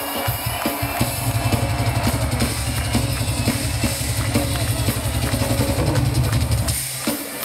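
Heavy metal drum kit played solo: a fast, continuous run of bass-drum strokes under snare and cymbal hits, starting about a second in and breaking off shortly before the end.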